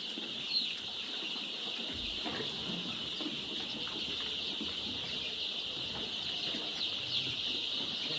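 A large flock of young chicks peeping together in a steady, high-pitched chorus, with scattered small scuffles and taps from the birds moving about the pen.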